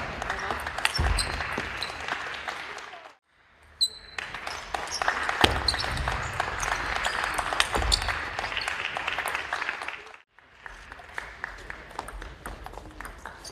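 Table tennis rallies: a plastic ping-pong ball clicking off the rackets and the table in quick runs, with short shoe squeaks on the wooden gym floor over a steady hiss of hall noise. The sound breaks off twice for a moment.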